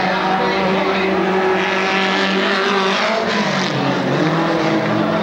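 Dirt-track race car engine running hard, its pitch dropping about three seconds in as it comes off the throttle, then climbing again as it accelerates.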